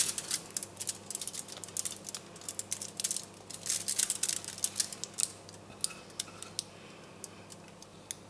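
Wooden spoon scraping a thick chocolate and marshmallow mixture out of a glass bowl into a foil-lined tray: irregular clicks and scrapes against the glass, coming in clusters and thinning out after about six seconds.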